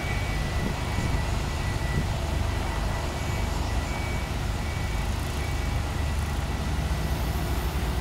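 Heavy diesel engine of a crawler crane running steadily under load while it holds a steel barge section, with a faint high beep repeating every second or so.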